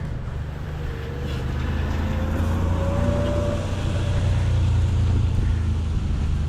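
A motor vehicle's low rumble growing louder, with a faint whine that rises slightly in pitch in the first few seconds.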